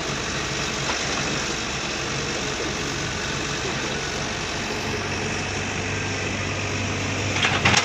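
Diesel engine of a single-drum padfoot (sheepsfoot) roller running steadily as it compacts an earth embankment, with a steady low hum setting in about five seconds in. A brief burst of clattering comes near the end.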